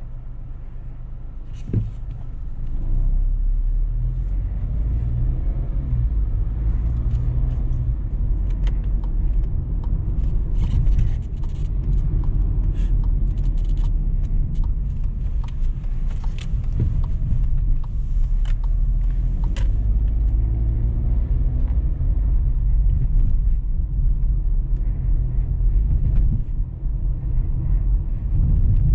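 Inside the cabin of a 2020 Volkswagen T-Cross 200 TSI automatic, with its 1.0-litre turbocharged three-cylinder engine, as the car pulls away from a stop and drives at town speed. The engine and the tyres on the road make a low rumble that grows louder about three seconds in, with scattered light clicks.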